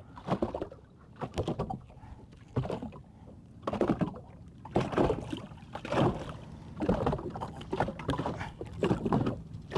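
Water lapping and splashing against the side of a small boat, in irregular swishes about once a second.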